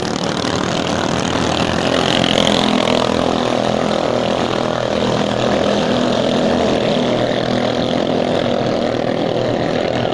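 Ketinting racing boat engines running flat out on the river, several together making a loud, steady drone.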